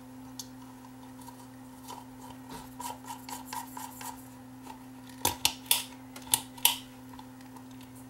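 Small metal parts of a ceiling fan's ball-chain pull switch and its metal housing being handled: soft rubbing, then about five sharp clicks between about five and seven seconds in.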